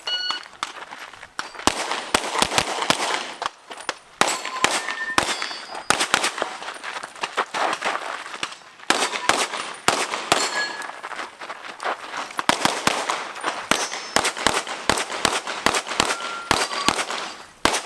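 Rapid pistol fire from an Open-division competition handgun during an IPSC stage: dozens of shots, often in quick pairs, broken by short pauses, with steel targets giving brief rings when hit.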